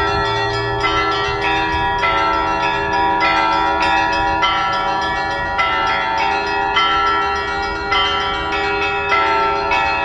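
Russian Orthodox church bells ringing a festive peal, several bells of different pitch struck in quick, overlapping succession and left ringing. The long ringing is apparently for Easter.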